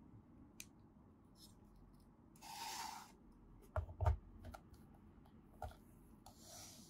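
Plastic handling sounds as a PVC anime figure is fitted onto its black plastic display stand: a scraping rub about two and a half seconds in, then two sharp knocks a moment apart, the loudest sounds, as the stand is set on the tabletop. A lighter knock and another short rub follow near the end, with faint clicks between.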